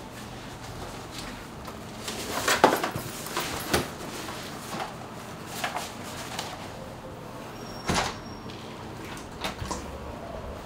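Scattered knocks and clatter of things being handled, like a cupboard or door being moved. The loudest are a cluster about two to three seconds in and a single knock near eight seconds, over a faint steady hum.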